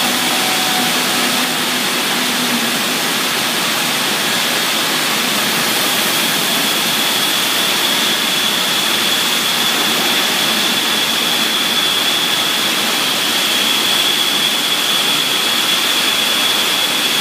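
Industrial CNC woodworking router running: a loud, steady rush of air and machinery with a high, steady whine that grows a little stronger partway through.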